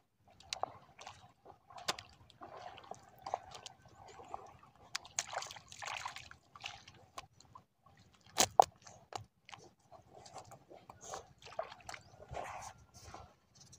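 Wet squelching, sloshing and dripping of hands and bare feet working in tidal mud and shallow water while fish are picked from a shore net, with scattered small clicks. A little past halfway come two sharp wet slaps, the loudest sounds.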